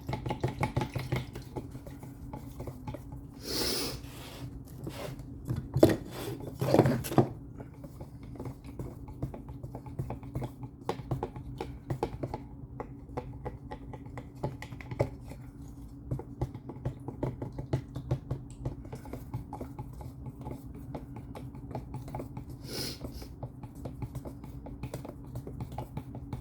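Paint and reducer being stirred in a mixing cup: a stir stick scraping and tapping against the cup in quick, irregular clicks, with a few louder knocks about six seconds in.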